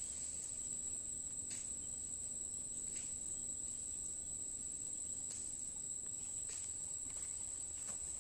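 Steady high-pitched insect chorus, like crickets shrilling in the field. A few soft crackles come from dry sugarcane leaves as the toy truck and the child's feet move over them.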